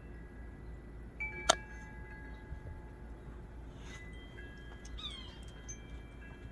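Wind chimes ringing, single tones at several pitches struck now and then and left to ring. A sharp click about a second and a half in is the loudest sound, and a short falling call-like sweep comes about five seconds in.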